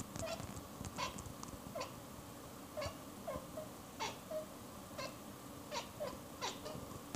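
Domestic tabby cat chattering at a bird: a string of short clicking chirps, each a quick falling note, coming about once or twice a second. This is the prey-watching chatter of a cat's hunting instinct.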